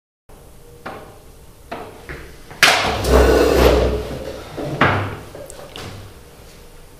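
Knocks and thumps of people moving at a wooden desk: a few light knocks, a louder scuffle with a low rumble lasting about a second and a half in the middle, then another sharp knock.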